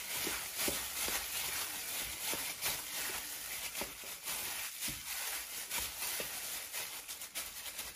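Hand in a plastic bag squishing and mixing sliced raw chicken thighs in a soy sauce and honey marinade in a bowl: irregular wet squelches and crinkling of the plastic.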